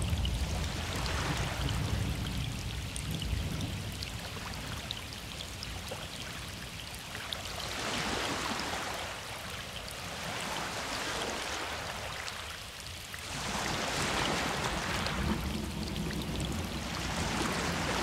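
Heavy rain falling in a wilderness thunderstorm recording, played from a nature-sound cassette. The wash of rain swells and eases every few seconds. A low rumble of distant thunder sits under it at the start and again near the end.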